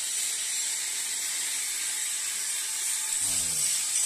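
Angle grinders grinding the rough edges of cast aluminium sculpture parts, a steady high whine and hiss.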